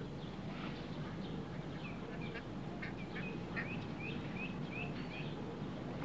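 A bird chirping: a run of about nine short, high, upward-hooked notes, roughly three a second, starting about two seconds in and stopping near the end, over a steady low background hum and hiss.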